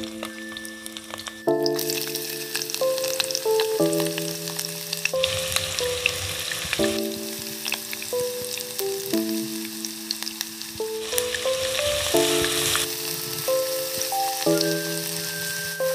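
Chopped onion and garlic sizzling in hot oil with chicken pieces in a pot, the frying rising sharply about a second and a half in as the onion hits the oil, and stirred with a spatula near the end. Background music of held notes changing about every second plays along.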